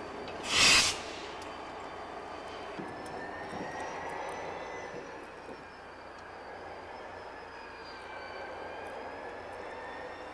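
Two EMD diesel locomotives, a Union Pacific SD40-2 and a Southern Pacific SD40T-2, each with a turbocharged 16-cylinder EMD 645 engine, running light and approaching. A brief loud gust of wind hits the microphone about half a second in, and from about three seconds in a high whine that drifts slightly in pitch rides over the engine sound.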